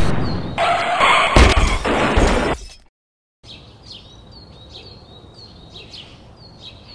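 A loud crashing clatter with a sharp bang about a second and a half in, cutting off abruptly into silence. Then a small bird chirps over and over, short high notes about twice a second.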